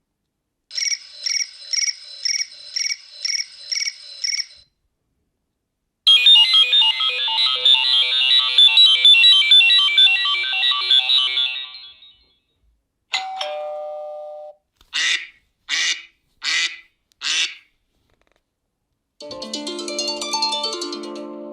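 A run of iPhone ringtones played one after another with short silent gaps. First comes a pulsing tone repeating about twice a second for four seconds, then a busy, rapid jingle lasting about six seconds, a brief tone, four quick chirps, and near the end a new tone of layered notes.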